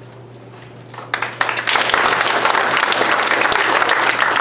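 Audience of schoolchildren applauding; the clapping starts about a second in and quickly builds to a full, steady round.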